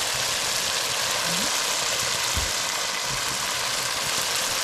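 Curry paste frying in hot oil in a pot, a steady sizzle, with a soft low knock about two and a half seconds in.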